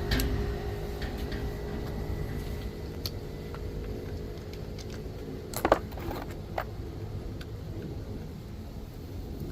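A few sharp metallic clicks and clinks of hand tools working on the wiper assembly's nut, the loudest just before six seconds in, over a steady low vehicle-like rumble with a faint hum that fades out about halfway.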